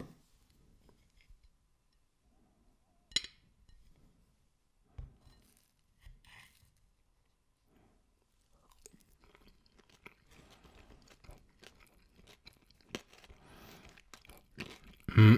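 Close-up chewing of crunchy caramel cheesecake with a cookie-crumb base. A few separate sharp clicks come in the first half, then steady crunching builds through the second half and is loudest near the end.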